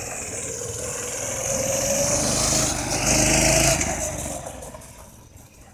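A small go-kart engine running as the kart drives past, growing louder and then fading away about four seconds in as it moves off.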